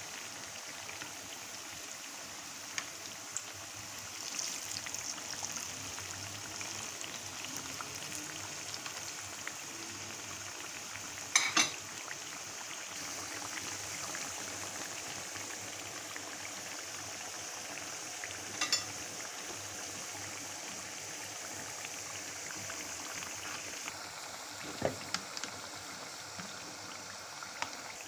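Potato cutlets frying in hot oil: a steady sizzle. A few short sharp clicks break it, the loudest a quick double click about halfway through.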